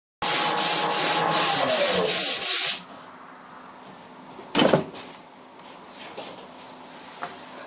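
Rapid, rough back-and-forth rubbing strokes, about three a second for a couple of seconds, over a tone that falls in pitch, most likely metal being worked by hand in a machine shop. Then a single short scrape or clunk near the middle, and a few faint ticks.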